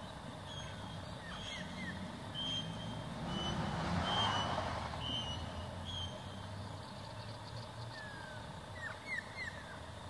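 Short, high bird chirps repeating over a steady low rumble of distant road traffic. The rumble swells about four seconds in, as a vehicle passes. A quick run of falling chirps comes near the end.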